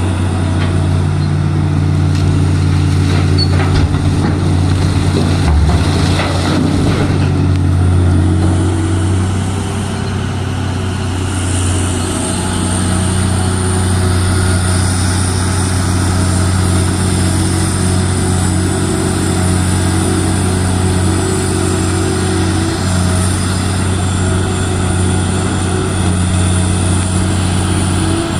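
Heavy diesel earthmoving machinery running steadily with a deep engine hum, with some knocks and clatter in the first several seconds. A high steady whine joins partway through.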